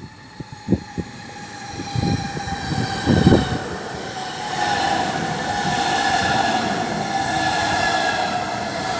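A train approaching along the platform: a building rumble, then from about four seconds in a high whine that slowly falls in pitch as it slows. A few low thumps come in the first few seconds.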